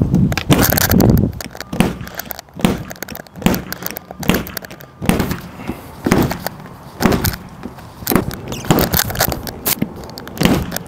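A glue-on dent-puller tab being yanked again and again on a car's dented front bumper, giving an irregular series of sharp cracks and snaps with dull thuds under some of them.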